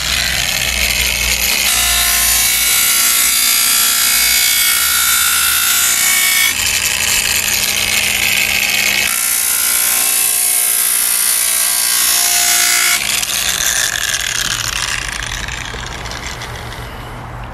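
Variable-speed angle grinder with an 800-grit diamond polishing pad running and grinding along the cut edge of a tile to bevel it, a steady motor whine over the rasp of the pad on the tile. The sound shifts a few times as the pad moves along the edge, then tapers off after about thirteen seconds.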